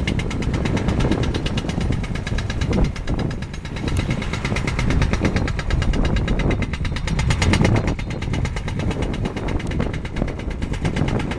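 Excavator-mounted hydraulic breaker hammering concrete in a rapid, steady train of blows, over the low running of the excavator's diesel engine.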